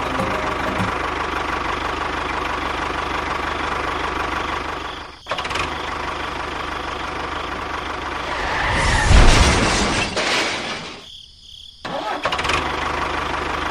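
A small engine running steadily, with a fast, even low pulse. It drops out briefly about five seconds in, grows louder and rougher around nine seconds, and almost cuts off near eleven seconds before running again.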